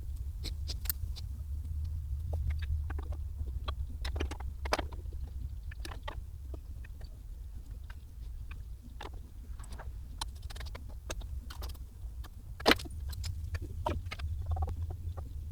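Scattered clicks, taps and small metallic knocks from hands and tools working on a motorcycle headlight assembly, over a steady low hum. One sharper click comes late on.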